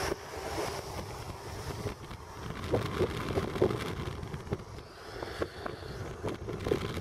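Steady tyre and wind noise from inside a car driving on a wet road, with scattered light taps.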